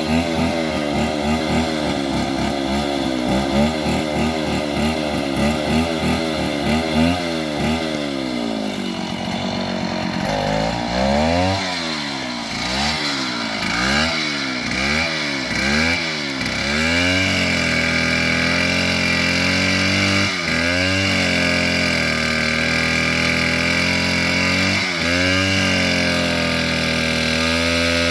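Bulldozer's diesel engine running hard. Through the middle its pitch swings up and down about once a second, then it holds steady at high revs, with two brief dips near the end.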